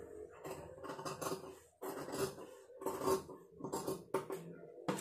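Large tailoring scissors snipping through blouse fabric, cutting out a pattern piece with a run of short crunching snips at an uneven pace.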